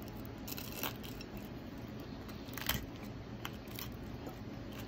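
Wooden chopsticks clicking against a plate of pan-fried gyoza and a metal dipping cup: a few light, separate clicks, the loudest a little past the middle, over faint room noise.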